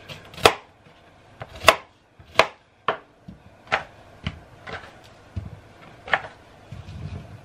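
Chef's knife cutting cauliflower into florets on a plastic cutting board: about nine sharp, irregularly spaced knocks of the blade striking the board, the loudest in the first two seconds.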